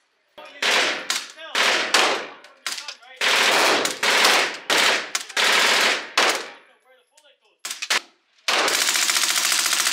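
MP5 submachine gun firing short full-auto bursts, about five in all, with a longer burst of about a second and a half near the end. The shots echo briefly off the walls of an enclosed indoor range.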